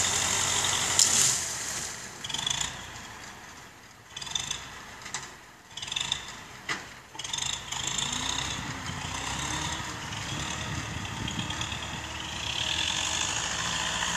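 Universal 650 tractor's diesel engine running, fading for a few seconds in the middle with several sharp knocks, then running steadily again and a little louder near the end.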